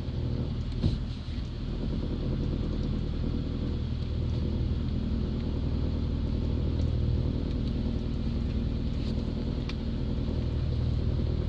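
Car running with a steady low rumble and a few faint clicks or knocks, about a second in and near the end; the owner presents the knocking as coming from the gearbox.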